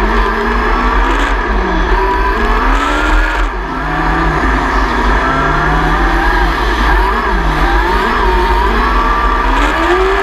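600cc micro sprint car's motorcycle engine at full race speed on a dirt oval, heard on board. The pitch rises and falls every second or two as the throttle is lifted for the corners and opened again down the straights, with a brief drop in level about three and a half seconds in.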